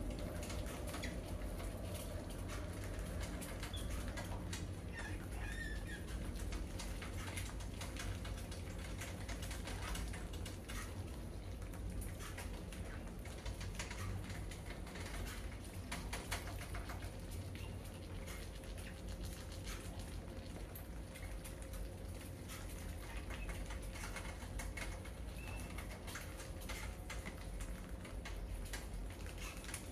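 Many mice scurrying over a wire-mesh cage trap and the tiled floor around it, their claws making a continuous patter of small clicks and scratches, with a few faint squeaks.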